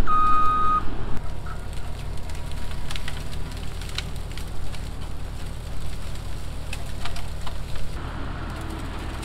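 Case SV340 skid steer working a felled tree through brush, its engine running steadily while branches crack and snap. A single short beep sounds at the start.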